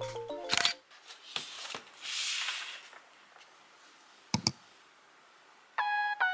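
Handling of merchandise packaging: a few small clicks, a short plastic-like rustle about two seconds in, and one sharp click about four seconds in. Background music stops early on and comes back near the end with plucked notes.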